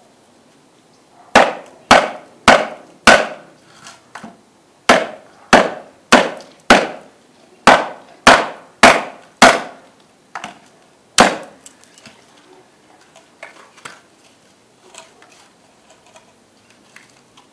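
A baton pounding on a Siddha khukuri's blade to drive it through a knot in a log of wood. There are about a dozen sharp knocks, roughly two a second, in two runs with a short pause between. A last strike comes a little after eleven seconds, followed by only faint small knocks and rustles.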